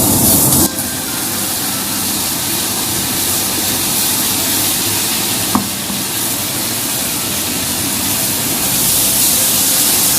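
Food sizzling in hot oil in a frying pan during a stir-fry, a steady hiss that drops a little in level just under a second in, with a single brief tap about halfway through.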